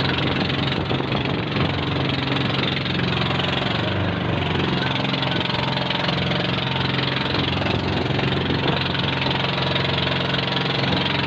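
Small engine of a motorized bangka outrigger boat running at a steady speed, with an even, unbroken drone.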